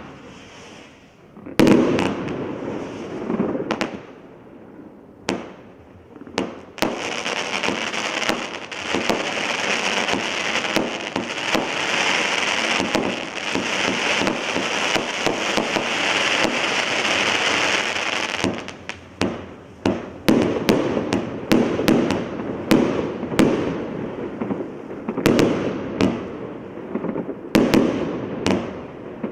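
Evolution Fireworks Prometheus 72-shot compound barrage firing: loud, sharp bangs in quick succession. In the middle they merge into a dense, continuous din for about ten seconds, then break up again into separate bangs near the end.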